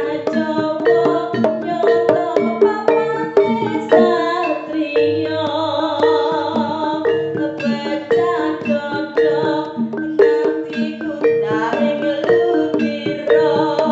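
Jaranan gamelan music: tuned metal gongs and metallophones beaten in a fast, repeating pattern over drum strokes.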